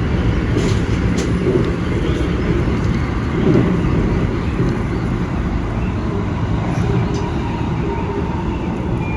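Steady low rumble inside a Keikyu Main Line train car, with a couple of faint clicks about a second in.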